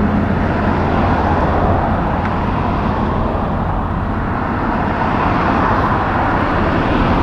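Highway traffic passing close by: a pickup and cars driving past with steady tyre noise that swells again near the end. A heavy truck's low engine sound fades away in the first second or so.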